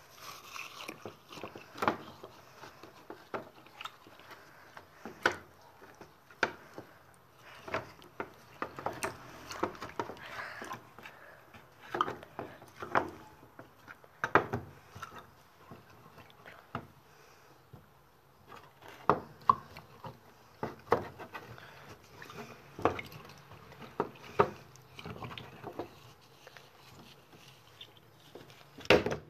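Irregular sharp clicks and knocks with rustling in between, from hands handling a small plastic cup stuffed with fresh leaves.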